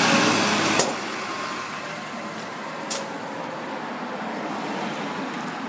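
Ryobi Bus city bus pulling away from the stop and driving off: engine and tyre noise loud as it passes close, falling off about a second in as it moves away. A sharp click comes about a second in and another two seconds later.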